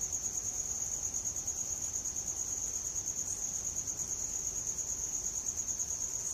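Cricket trilling steadily: one continuous high-pitched, rapidly pulsing note.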